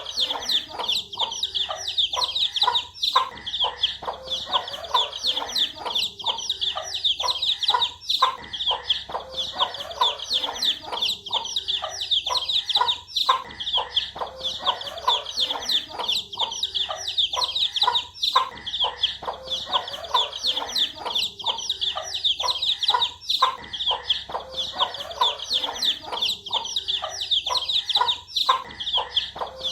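A flock of baby chicks peeping without pause: a dense stream of short, high chirps, many falling in pitch, with lower clucking calls underneath.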